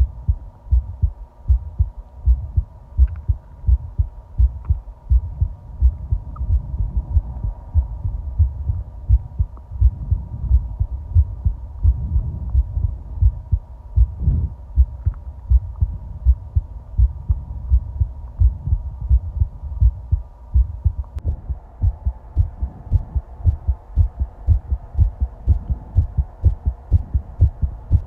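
A person's heartbeat picked up close against the body: an even, quick run of low thumps. About halfway through, a short stomach gurgle rises over the beats.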